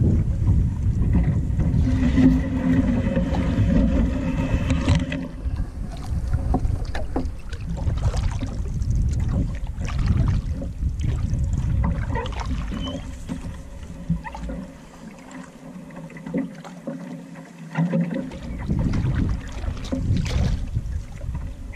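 Canoe being paddled across open water, with scattered knocks of paddle and hull. A low wind rumble on the microphone eases about two-thirds of the way through.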